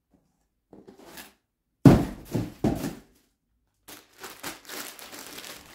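Plastic wrapping and packing paper rustling and crinkling as a plastic-bagged package is lifted out of a cardboard shipping box. The loudest part is a sudden burst of rustles about two seconds in, followed by softer steady crinkling.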